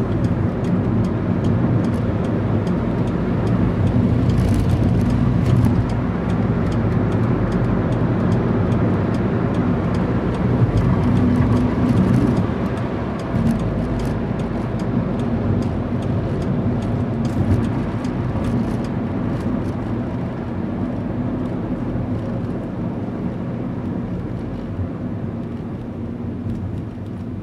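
Car engine running under load with road and wind noise, heard from inside the cabin as the car is driven at speed on a race track. It is loudest in the first half and gradually quieter over the last several seconds.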